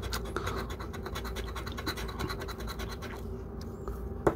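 A large coin scraping the latex coating off a lottery scratch ticket in rapid back-and-forth strokes, with a sharp click near the end.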